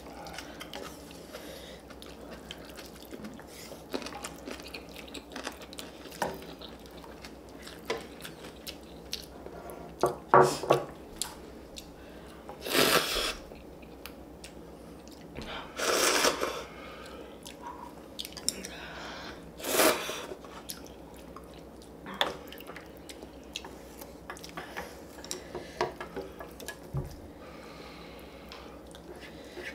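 Close-up eating sounds of two people eating spicy instant ramen noodles: several loud slurps of noodles, with chewing and small clicks of chopsticks and spoons against bowls in between.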